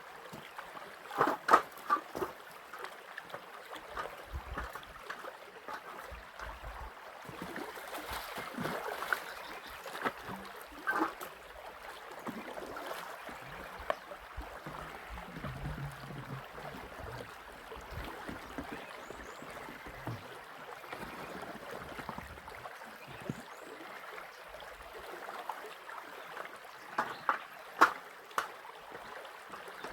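Running water trickling steadily, with a few short sharp knocks: about a second and a half in, once near the middle, and a cluster near the end.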